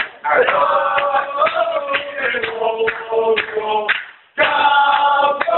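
A crowd of football supporters singing a chant together in loud unison, with sharp beats through it. The singing breaks off briefly about four seconds in, then comes back in full.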